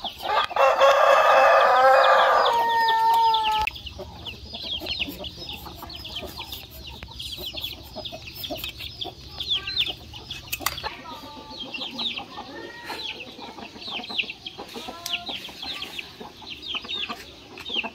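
A rooster crows once, loudly, for about three seconds near the start. After that, chicks peep over and over in short, high, falling notes, with now and then a hen's lower clucking call.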